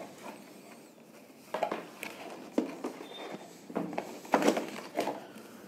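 Cardboard box and packaging tray being handled: after a quiet start, a few short, light knocks and rustles, beginning about one and a half seconds in.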